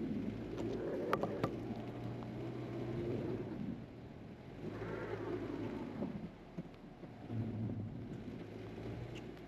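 Car engine heard from inside the cabin, revving up in three surges while the wheels spin in deep snow and the car stays stuck. Two sharp clicks come about a second in.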